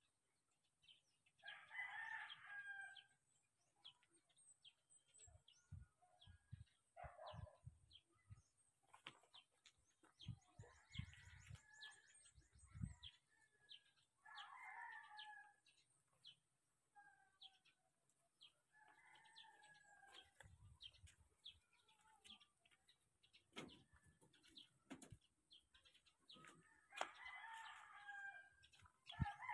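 Roosters crowing faintly, several crows a few seconds apart, each lasting a second or two.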